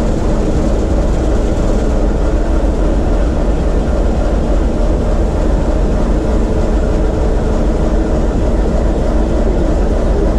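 TEM2 shunting locomotive's diesel engine running steadily under load from a water-rheostat load test, at about 420 rpm on the third power notch, heard from inside the cab as a constant deep rumble. The engine is being run in after a major overhaul.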